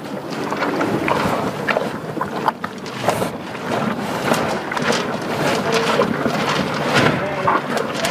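Horse grazing close up: grass ripped and chewed in an irregular run of crunching and tearing clicks.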